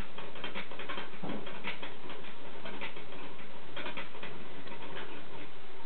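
Mongolian gerbils scurrying and scratching in wood-shaving bedding: irregular light clicks and rustles.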